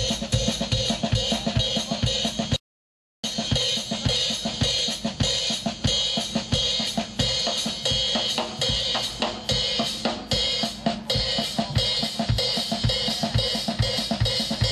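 Drum kit solo played live: fast, dense strokes with bass drum kicks underneath and a steady wash of cymbals on top. The sound cuts out completely for about half a second near the start.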